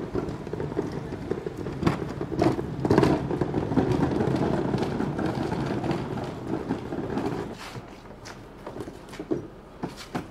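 Plastic wheelie bin rolling on its wheels over paved ground with a steady rattling rumble, which stops after about seven and a half seconds. A few separate knocks follow as the bin is handled and lifted.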